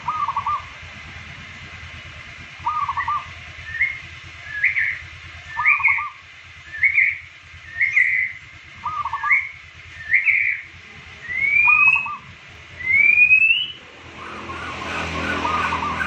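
Zebra dove (perkutut) cooing: short trilled coo phrases about every two and a half seconds. Between them a higher series of short rising whistled notes, ending in two longer rising whistles.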